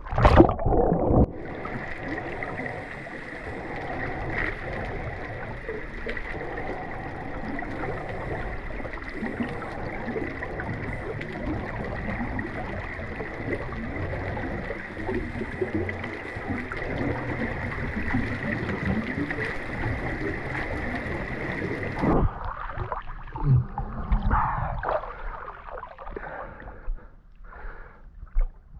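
Muffled underwater sound from a camera held beneath the surface of a spring-fed river: a steady hiss with a thin high tone through it. About twenty-two seconds in it breaks off into splashing and gurgling as the camera comes up to the surface.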